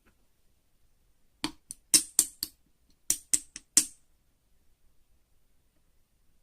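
Slime being worked by hand, giving sharp, crisp popping clicks: a quick run of five, then after a short pause a run of four, about four a second.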